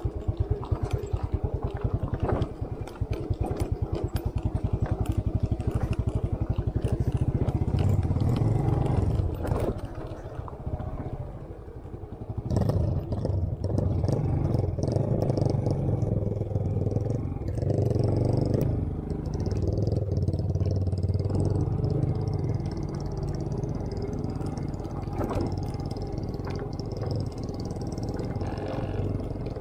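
Small scooter-type motorcycle's engine running as it is ridden slowly over a rough dirt track. The engine eases off about ten seconds in and picks up again about two seconds later.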